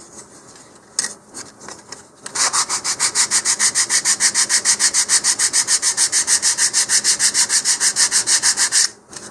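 100-grit sandpaper on a hand sanding block rubbed quickly back and forth along the edge of a basswood fin, rounding its leading edge. After about two seconds of light handling, the strokes start and run evenly at about seven a second, stopping shortly before the end.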